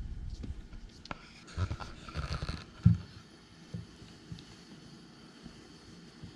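Kittens play-fighting on a fabric cushion: scuffling and rustling with scattered dull thumps, the loudest a sharp thump about three seconds in.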